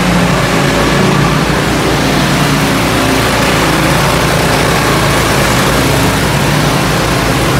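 Motorized concrete buggy's small gasoline engine running loud and steady as the loaded buggy drives close by.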